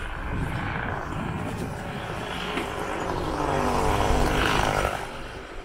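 An engine passing by, swelling to its loudest about four seconds in and then fading, over the low rumble of wind on the microphone of a moving bicycle.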